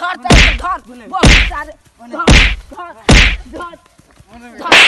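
Five loud whacks, roughly a second apart, each a sharp hit with a heavy low end.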